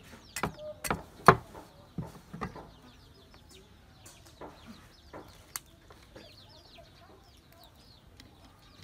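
A cleaver knocking on a wooden chopping block while quail are cut up: a quick run of sharp knocks in the first two and a half seconds, the loudest about a second in, then three more spaced out. Birds chirp in the background.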